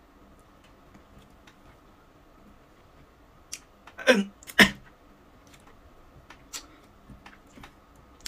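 A person's short cry falling steeply in pitch, then at once a sharp explosive sneeze-like burst, about four seconds in and much the loudest thing; faint scattered clicks otherwise.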